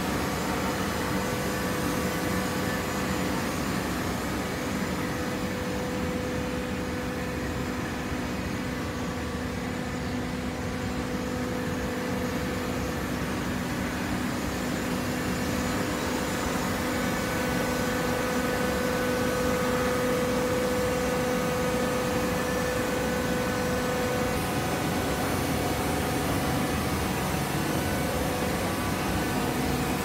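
Horizontal auto-tie hydraulic baler running: a steady machine hum with a few held whining tones.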